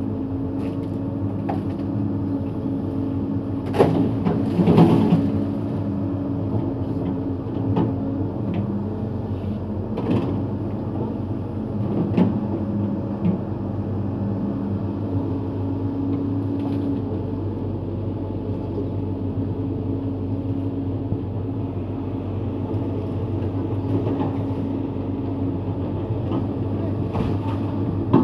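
Hyundai crawler excavator's diesel engine running steadily with its hydraulics working, broken by several sharp knocks and cracks, the loudest cluster about four to five seconds in and others around ten, twelve and twenty-seven seconds.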